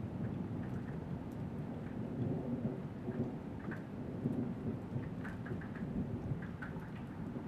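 Thunder rumbling low and steadily, with rain falling and scattered raindrop ticks.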